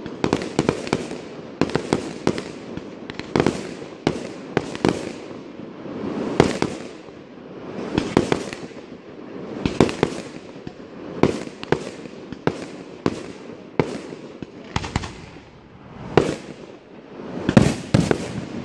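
Fireworks display: a rapid, irregular run of sharp firework bangs, about one or two a second, over a continuous hiss of spark fountains and shells.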